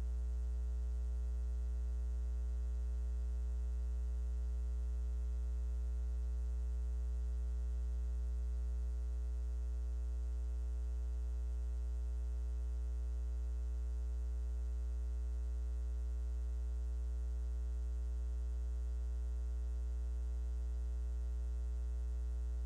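Steady electrical mains hum with a ladder of overtones and nothing else: the preacher's microphone feed has dropped out, leaving only the hum on the line. It dips slightly in level about nine seconds in.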